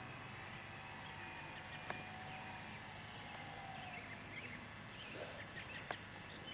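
Birds chirping faintly outdoors, with a faint high whine that slides slightly lower over the first few seconds and two sharp clicks.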